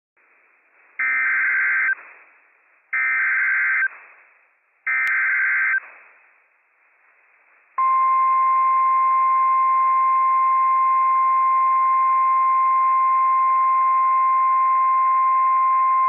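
NOAA Weather Radio Emergency Alert System tones: three short bursts of SAME digital header data, each about a second long with a pause between, then the steady single-pitch 1050 Hz warning alarm tone starting about eight seconds in. Together they announce a Flash Flood Warning.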